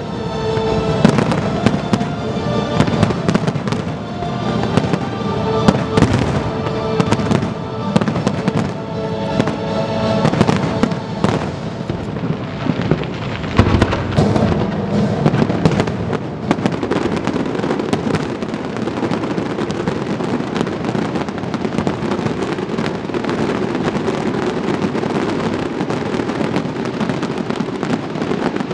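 Aerial fireworks shells bursting in rapid succession over music. After about twelve seconds the music fades from the mix and a dense, continuous crackle of bursts carries on.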